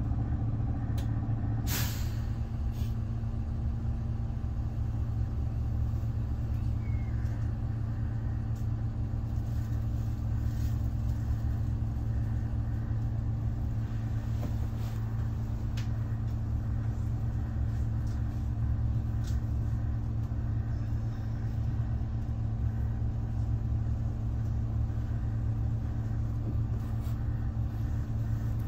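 City low-floor bus engine idling steadily with a low hum while the bus waits at a red light, heard from inside the cabin. One short sharp sound about two seconds in.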